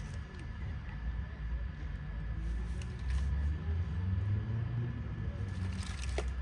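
Low steady outdoor rumble that grows a little louder about halfway through. A few light clicks come over it, the clearest near the end, as hands sort circuit boards and wires in a plastic crate.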